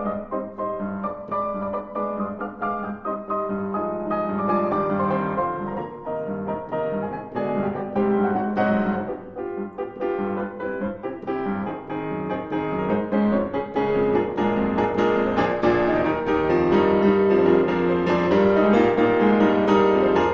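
Solo grand piano playing a dense classical passage with many rapid notes, building louder through the second half.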